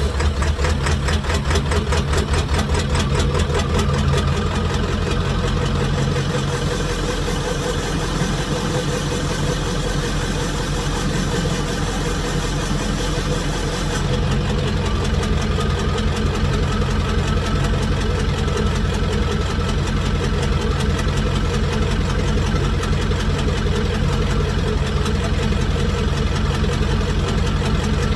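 1995 Ford F350's 7.3L Powerstroke V8 turbo diesel idling just after a start, with a steady diesel clatter through a 4-inch straight pipe. About halfway through the sound turns deeper and a faint steady turbo whistle comes in.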